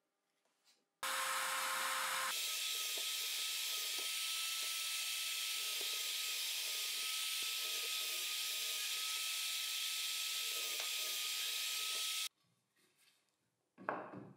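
Bench drill press running and boring holes in plywood: a steady motor whine over the hiss of the bit cutting. It starts about a second in, the whine steps up in pitch a second later, and it stops sharply about two seconds before the end. A brief sound follows as a plywood piece is handled on the bench.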